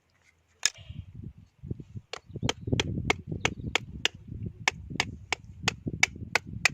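A kitchen utensil striking repeatedly, with a single sharp knock and then a steady run of about three knocks a second over a low rustling.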